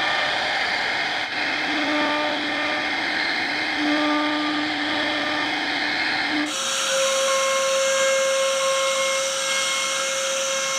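CNC router spindle running as it carves wood: a steady machine whine over cutting noise, with a hum that shifts in pitch. About six and a half seconds in it switches abruptly to a higher, steadier whine.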